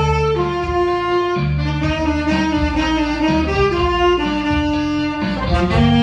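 Saxophone playing a slow melody in long held notes over a backing track with a steady bass line.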